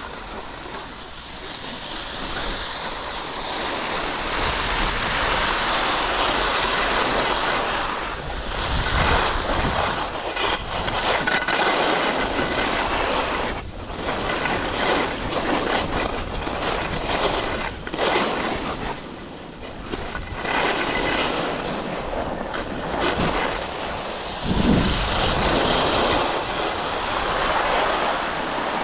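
Skis side-slipping down the fall line of a hard-packed race course, the edges scraping the snow in long rising and falling surges, with wind on the microphone.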